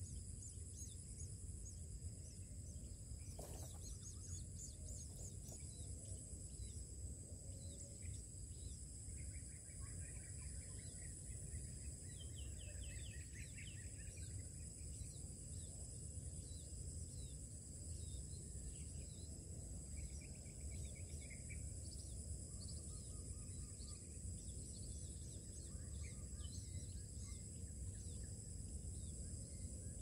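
Faint outdoor ambience: a steady high insect drone over a low rumble, with scattered short bird chirps that come in quick runs now and then.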